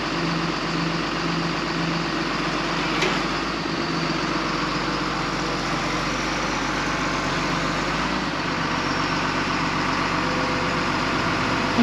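Rollback tow truck's engine running steadily while the tilted hydraulic flatbed is lowered level. A low pulsing hum, about three pulses a second, stops about two seconds in, and there is one sharp click about three seconds in.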